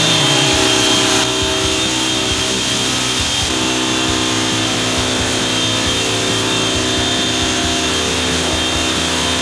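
Pressure washer running steadily, its wand spraying water onto a car's paintwork to rinse off iron-remover chemical.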